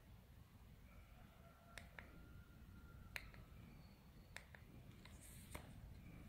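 Near silence, with about half a dozen faint, sharp clicks scattered through it.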